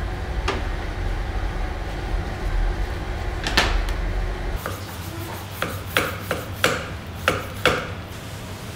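A kitchen knife being honed on a sharpening steel: about six quick, sharp metal strokes in the second half. Before it, a steady low hum with a sharp knock about three and a half seconds in.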